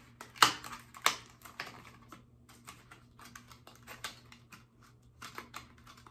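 Irregular light clicks and taps of small plastic lash packaging being handled, with two sharper clicks in the first second or so and a quick cluster of taps near the end.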